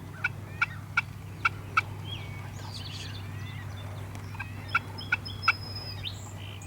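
Turkey calling: five short, sharp notes in the first two seconds, then three more about five seconds in. Songbirds sing faintly between them.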